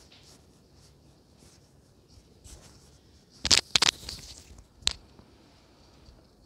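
Crackling and rustling on an ear-worn microphone as her hair and hand brush against it. There are faint rustles, then a cluster of loud crackles about three and a half seconds in and one more sharp crackle near five seconds.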